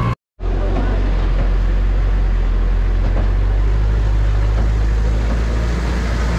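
A vehicle engine running steadily with a low drone under a constant rushing noise. The sound cuts out for a moment just after the start.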